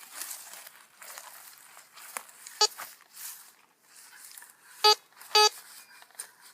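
Metal detector giving short beeping target tones as the coil passes over buried metal: one beep about two and a half seconds in, then two quick beeps near the end. Light rustling of the ground under the sweep comes before them.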